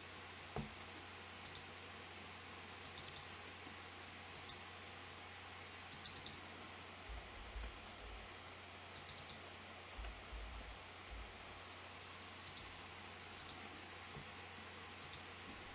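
Faint, scattered clicks of a computer mouse and keyboard over a steady low hum, with a few soft low bumps about seven and ten seconds in.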